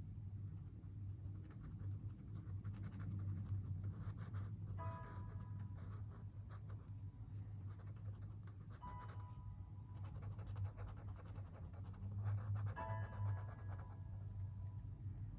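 Pen scratching on journal paper in many small strokes, with a few light paper rustles. Soft background music notes come in every four seconds or so, over a steady low hum.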